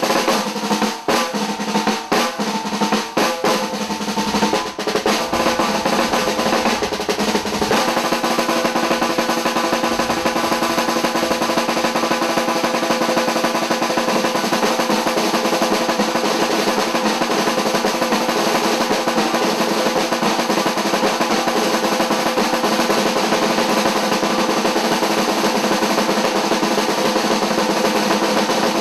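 A trio of snare drums played with sticks: separate sharp strokes for the first several seconds, then a dense, continuous roll at an even level.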